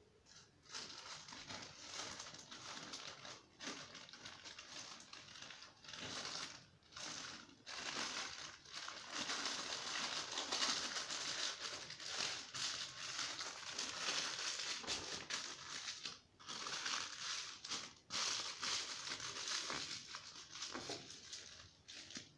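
Thin paper sheet crinkling and rustling as hands fold and roll it tightly around a filled pita wrap, with a few short pauses.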